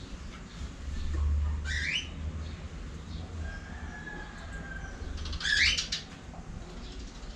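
Pet cockatiels giving two short rising chirps, about three and a half seconds apart, the second one louder, over a low steady hum.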